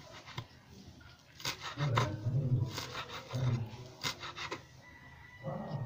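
Kitchen knife slicing spring onion stalks on a cutting surface, in short runs of quick cuts with low knocks, about four runs in all.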